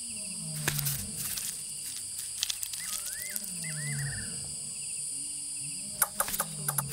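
Night ambience of steady high insect trilling, under a low animal call that falls in pitch and recurs every second or two. Two short warbling calls come a little under halfway through, and clusters of sharp clicks and rustles come about a second in and again near the end.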